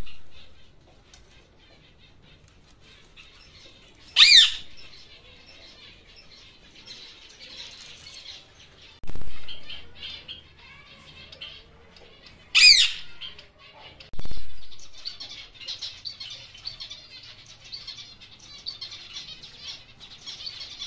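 Caged birds calling: a rose-ringed parakeet gives two loud, short, harsh screeches about eight seconds apart, over high, busy chirping from small finches that grows denser in the last third. A few low dull thumps sound in between.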